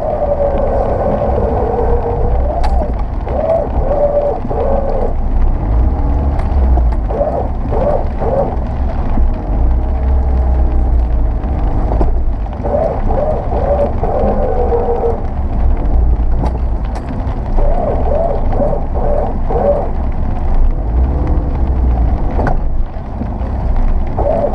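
Subaru Forester working its way over rocks: a low rumble with a groaning note that rises and falls in repeated spells, broken by sharp knocks.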